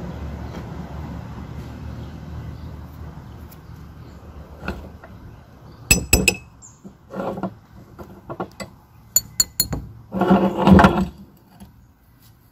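Metal parts of a meat grinder clinking and scraping as it is taken apart and its auger is drawn out of the barrel, with a louder clattering scrape near the end. A low steady rumble fades away over the first few seconds.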